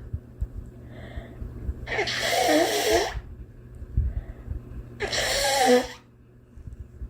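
A girl coughing: two long, voiced coughs about three seconds apart, over a low steady hum.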